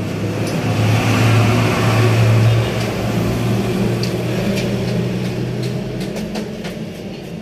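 A vehicle engine running steadily, swelling louder about a second in and easing off after a couple of seconds, with a few light clicks over it.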